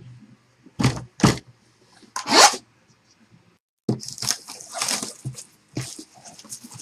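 A sealed trading-card box's wrapping being cut open with a blade and torn off: two sharp snaps about a second in, a louder rip a little after two seconds, then a run of crinkling and tearing from about four seconds in.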